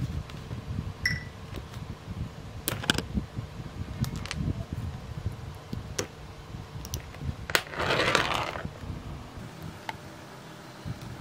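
Close-up handling sounds as a tiny coreless motor is taken apart with a small cutting tool: scattered light clicks and taps, with a longer scraping crunch about eight seconds in.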